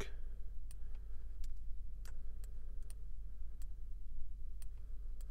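Computer mouse clicking: sharp single clicks at uneven intervals, roughly one or two a second, over a steady low hum.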